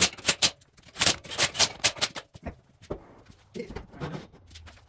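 A quick run of sharp clicks and clacks, several a second, for about two seconds, followed by a few softer knocks.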